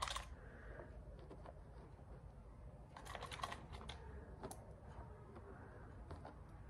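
Small stamp-game tiles clicking as they are picked out of a wooden box and set down on a mat: a quick cluster of light clicks at the start, another about three seconds in, and a single click about a second later.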